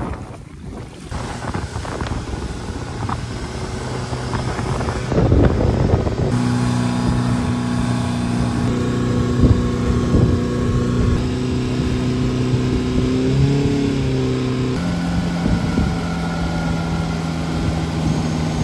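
Motorboat engine running at speed with wind buffeting the microphone. The engine hum starts about six seconds in, after a stretch of wind and water noise, and its pitch bends and then steps higher near the end.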